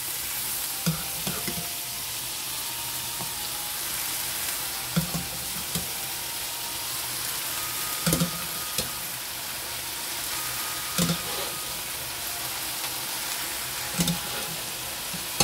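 Boiled corn kernels sizzling in hot oil in a sauté pan while being stirred, a steady frying hiss. Short knocks of the utensils against the pan come every few seconds.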